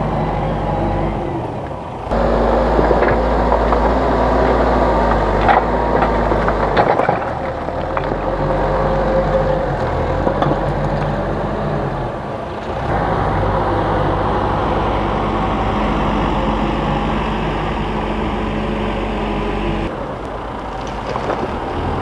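Diesel engine of a Hidromek HMK 102B backhoe loader running under load while its front bucket pushes and lifts soil and rubble. The engine note shifts abruptly a few times, and there are a few sharp knocks a few seconds in.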